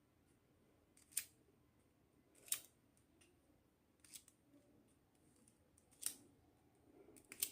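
Five sharp, brief clicks a second or two apart, the last a quick cluster: small hard pieces of a miniature toy kitchen set being handled, or snips from cutting open its packaging.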